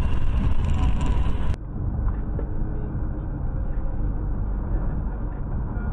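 Steady road and engine rumble of a moving car, picked up by a dash cam inside it. About a second and a half in it changes abruptly to a duller, more muffled rumble.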